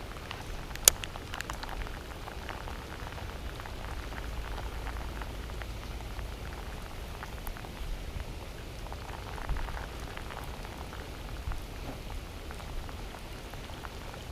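Heavy rain falling steadily, a hiss of countless small drop ticks. One sharp click stands out about a second in.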